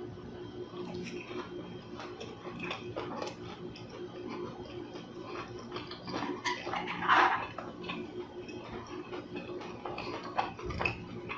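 Close-up eating sounds: chewing with scattered clicks of utensils against a plate, the loudest about seven seconds in, over a faint steady hum.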